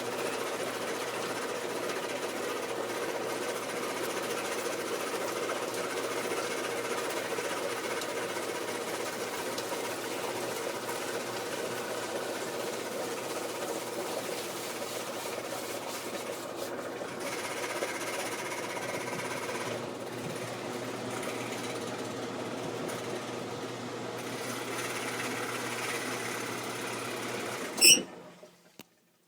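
Maytag Performa washing machine running with a steady mechanical noise of unknown cause, the fault the owner is trying to identify. Near the end a sharp loud click, and the noise stops.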